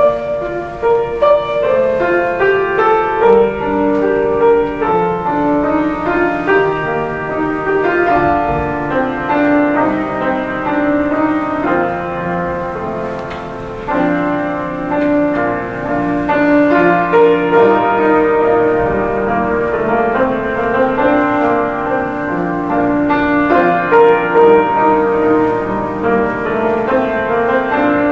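Solo grand piano playing an instrumental piece, with held notes ringing over one another.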